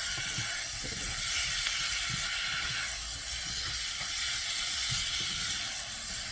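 Chicken pieces sizzling steadily in hot oil and paprika in a pot as they sauté, with soft low knocks now and then.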